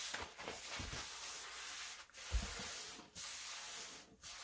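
Paper towel rubbed over a flour-dusted wooden tabletop, several wiping strokes with short breaks about a second apart, and a light thump about halfway through.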